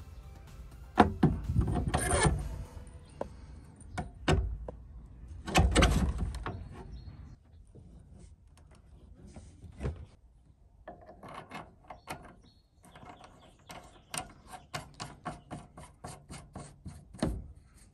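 Metal parts knocking and scraping as a motorcycle fork tube is pushed up through the steering triple clamps, with the loudest knocks in the first few seconds. Later comes a run of quick, even clicks, about four a second.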